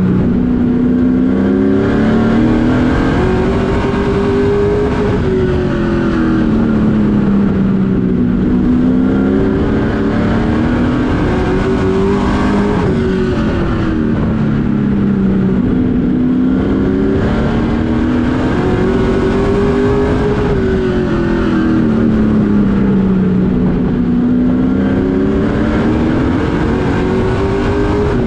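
Race truck engine heard from inside the cab at racing speed. The pitch climbs on each straightaway and drops into each turn, rising and falling in smooth waves about every seven or eight seconds, four times over.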